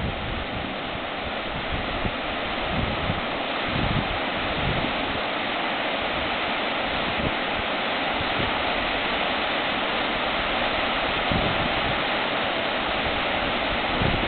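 Steady rush of fast-flowing river water, with a few faint low gusts of wind on the microphone.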